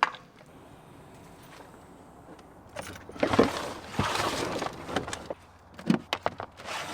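Camping gear being handled: a spell of loud rustling and clattering a few seconds in, followed by several sharp clicks and knocks.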